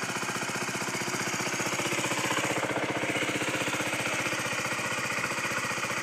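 2013 KTM Duke 125's single-cylinder four-stroke engine idling steadily just after a cold start at about 8 °C.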